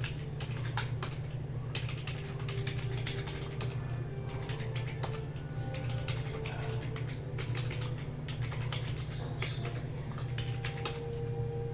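Typing on a computer keyboard: a run of quick, irregular key clicks, over a steady low electrical hum.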